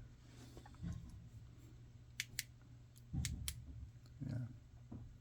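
A few sharp clicks, two pairs about a second apart in the middle, with soft low knocks, as small hard objects are handled on a table.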